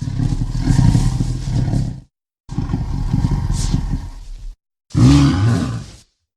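Three giant-monster roar sound effects for a kaiju, cut apart by dead silence: two of about two seconds each, then a shorter one whose pitch wavers.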